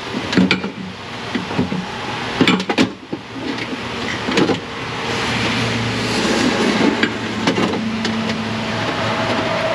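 Metal knocks and rattles of a power window regulator with its motor being worked loose and lifted out through the door's inner panel, a few sharp clanks in the first half. About halfway in a steady rushing noise comes up and carries on.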